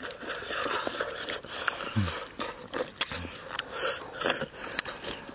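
Close-up eating sounds: a person slurping and chewing sour fish soup, with many short clicks and smacks of mouth and spoon against a coconut-shell bowl. Two short low hums, about two and three seconds in.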